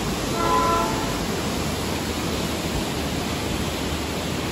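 Steady rush of river water flowing over rocks below a footbridge. A short pitched call cuts in briefly about half a second in.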